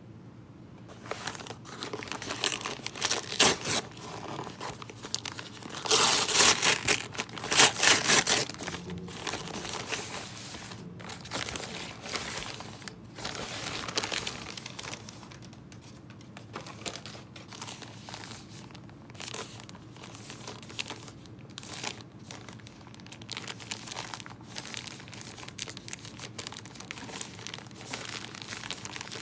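A kraft paper mailer being torn open along its tear strip, with loud ripping bursts in the first eight seconds or so. Then paper and frosted plastic zip bags rustle and crinkle as they are handled.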